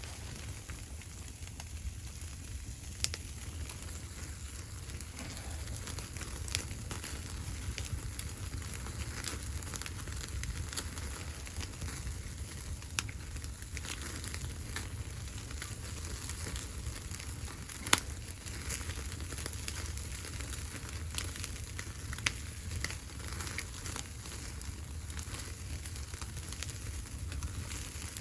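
Wood fire crackling, with irregular sharp pops, the loudest about eighteen seconds in, over a steady low rumble.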